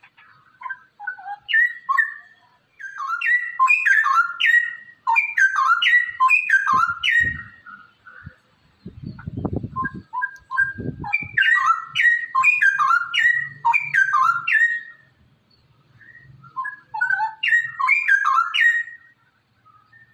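Straw-headed bulbul (cucak rowo) singing its loud, bubbling whistled warble in several long bursts with short pauses between them. A few low thuds are heard around the middle.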